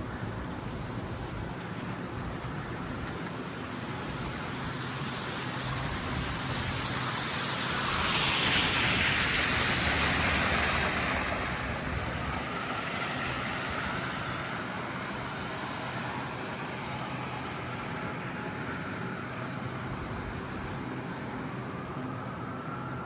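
Steady street traffic, with one vehicle passing close by: its tyre hiss swells, is loudest about eight to eleven seconds in, then fades away.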